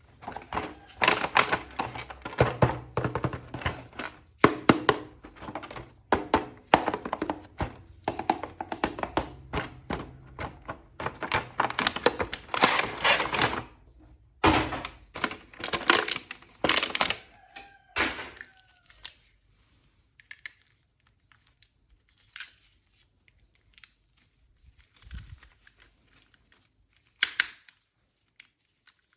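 Action-figure packaging being opened by hand: crinkling, tearing and thunks. These run dense for about the first 18 seconds, then thin out to scattered taps and clicks.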